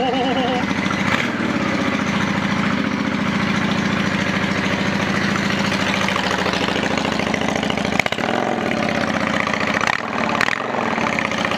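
Motorcycle engine idling steadily just after its first cold start of the season, with brief dips in its note about eight and ten seconds in.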